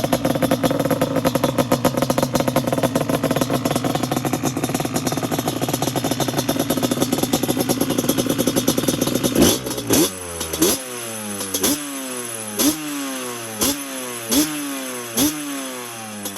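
Yamaha Banshee's 350 cc twin-cylinder two-stroke engine running steadily at raised revs, then from about nine and a half seconds in blipped sharply about once a second, the revs falling back after each blip.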